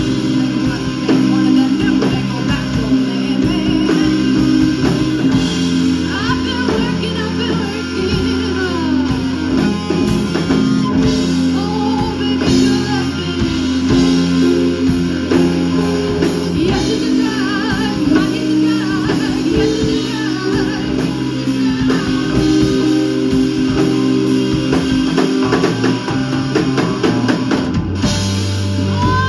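Live rock band playing a slow minor-key blues: electric guitar with bending lead lines, electric bass and a drum kit, with a woman singing.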